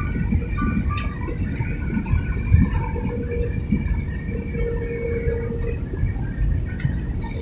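Steady cabin noise of a jet airliner descending to land: a low rumble of engines and airflow, with a faint hum that comes and goes.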